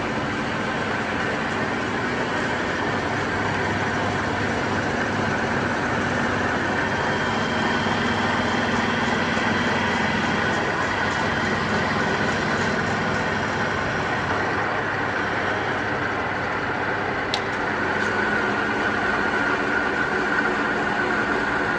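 Churchill 42-inch ring grinder running under power: a steady machine noise with several held whining tones from motor and spindle, and one sharp click about 17 seconds in.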